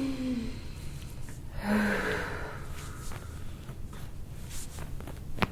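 A person's hard breath out, a noisy sigh with a little voice in it, on instruction during a chiropractic rib adjustment. A single sharp click comes near the end.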